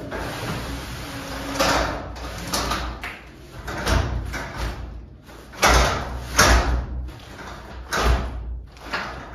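A steel sectional garage door on extension springs being moved by hand along its tracks: about seven knocks and thumps, with rollers and panels rattling in between, as the door's spring balance is checked.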